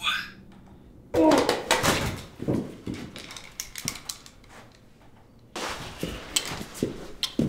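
Sounds of a physical struggle: a sudden burst of thumps and knocks about a second in, quieter clattering after it, and another run of sharp knocks from about five and a half seconds.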